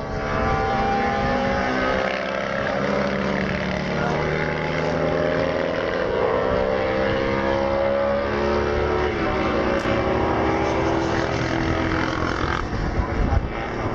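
Racing motorcycle engines running on the circuit, several engine notes at once holding and gliding in pitch, one dropping in pitch about nine seconds in. Wind rumbles on the microphone underneath.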